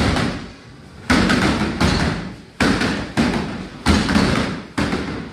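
Gloved punches and kicks landing on freestanding Century Wavemaster-style heavy bags: a run of about seven heavy thuds at an uneven pace, each trailing off before the next.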